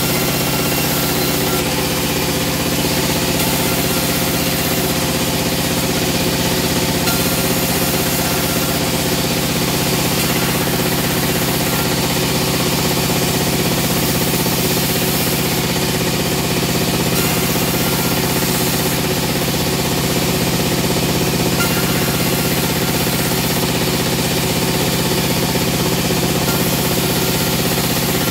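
Rotary veneer peeling machine running steadily while it peels a log, a continuous even machine drone with a steady hum.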